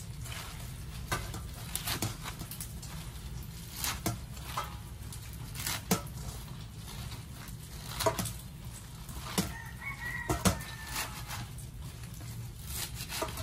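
Knife slicing through bunches of leafy greens held in the hand over a steel colander: crisp cuts at irregular intervals, about one every second or two, with leaves rustling. A short pitched call is heard about ten seconds in.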